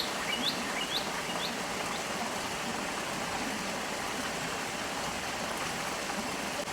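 Stream water flowing steadily with an even rushing sound. In the first two seconds a small bird gives a run of short, rising chirps that fade out.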